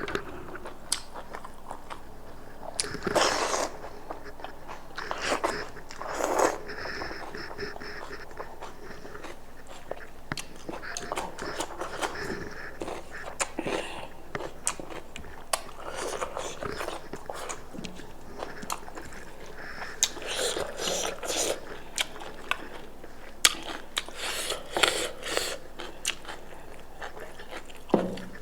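Close-miked eating of goat meat in soup: chewing and biting with wet mouth clicks, and several louder bursts scattered through.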